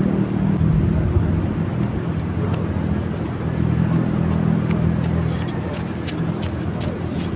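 A steady low engine hum from an unseen motor, with faint sharp ticks in the second half.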